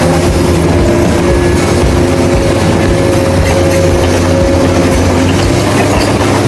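Heavy diesel earth-moving machinery running loudly and steadily, a dense engine rumble with a few held tones over it.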